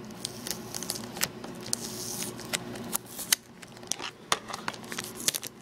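Plastic wrapping on a DVD case crinkling and crackling in irregular sharp clicks as fingers pick at it and try to tear it open.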